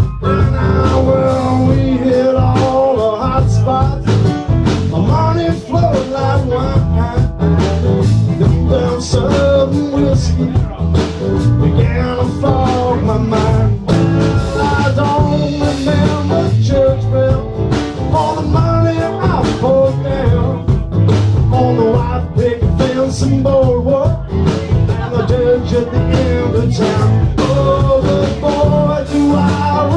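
A live band of acoustic guitars, keyboard, bass and drums playing a blues-rock number with a steady beat.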